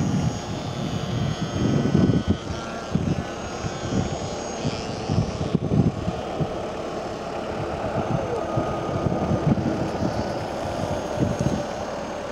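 Radio-controlled model airplane's motor and propeller running in flight: a thin whine that drifts up and down in pitch as the plane manoeuvres. Gusty wind rumbles on the microphone underneath.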